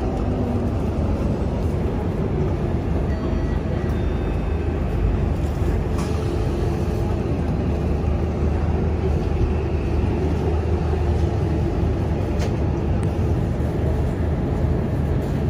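Steady low rumble of a vehicle's engine and tyres, heard from inside the cabin while driving on a wet road in the rain, with a constant hiss over it.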